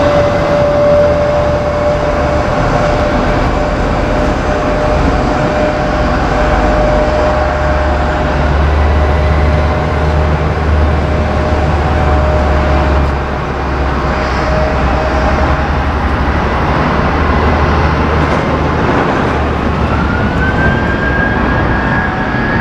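Airbus A380-861 jet engines, four Engine Alliance GP7200 turbofans, running at taxi power: a steady jet rumble with a whine. A second whine rises in pitch near the end, then holds.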